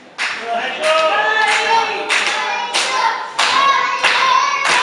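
Small audience clapping in a steady rhythm, about three claps every two seconds, with voices chanting along.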